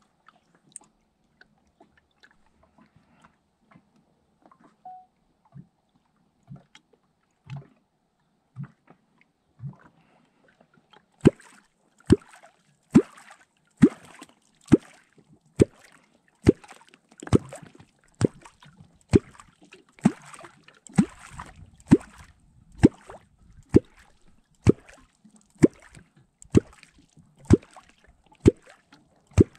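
A wooden catfish clonk (kwok) struck into the water again and again, about one stroke a second, each a deep hollow plop that drops in pitch. The strokes are faint at first and turn loud about eleven seconds in. This is the call that draws catfish up to the bait.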